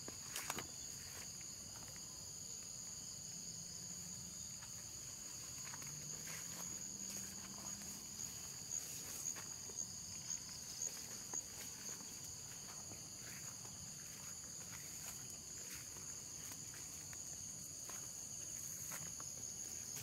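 Steady, high-pitched insect chorus, with scattered rustles and clicks of someone walking through cassava foliage. A run of sharper clicks comes about nine to eleven seconds in.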